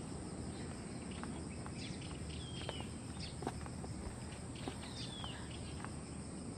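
Quiet outdoor ambience: a steady low background hum with a few faint ticks, and a bird giving a short falling whistle twice, about two and a half seconds apart.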